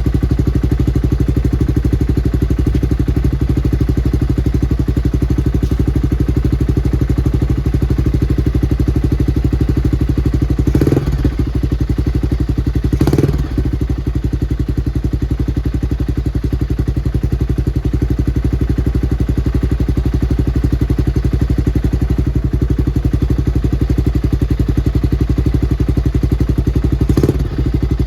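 1996 Honda XR600's air-cooled single-cylinder four-stroke engine idling steadily while warming up from a winter cold start. A few brief sharper sounds stand out about eleven and thirteen seconds in and again near the end.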